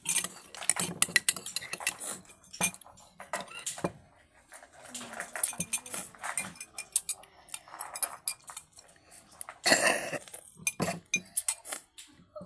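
A metal spoon clinking and tapping against a dish again and again, in irregular small clicks. A short, louder burst of noise comes about ten seconds in.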